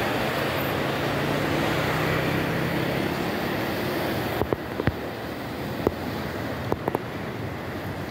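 A river in spate: brown floodwater rushing over rapids with a steady roar. About halfway through the rush drops slightly and a few short, sharp knocks come in.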